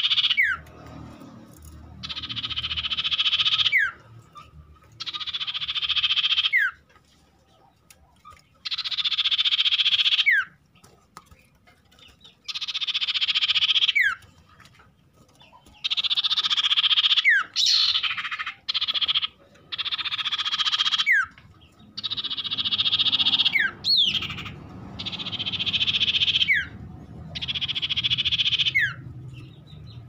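Common iora (cipoh) calling: a buzzing rattle about two seconds long, each ending in a quick falling whistle, repeated about a dozen times with short gaps.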